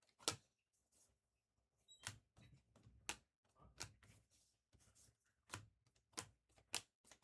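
Trading cards being flipped through by hand: faint, irregular snaps and slides of card stock, about one every second.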